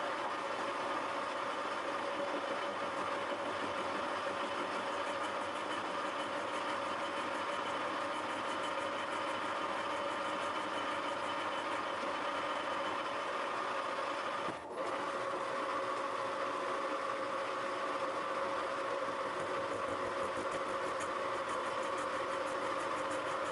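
Thiel Duplex 158 milling machine running steadily while an involute gear cutter pre-cuts (gashes) the teeth of a worm wheel held in a dividing head. The sound breaks off for a moment about fifteen seconds in.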